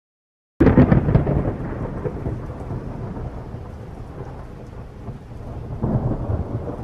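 Thunderstorm: a sudden loud thunderclap about half a second in, then rolling rumble over a steady hiss of rain, swelling again near the end.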